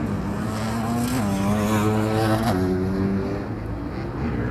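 Enduro dirt bike engine revving under acceleration. Its pitch climbs over about a second and a half, then drops sharply about two and a half seconds in, as at a gear change, over a steady low rumble.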